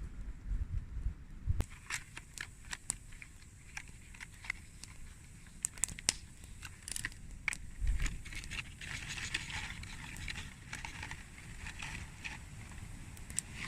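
Campfire crackling and snapping in irregular sharp pops, with gusts of wind rumbling on the microphone near the start and about eight seconds in.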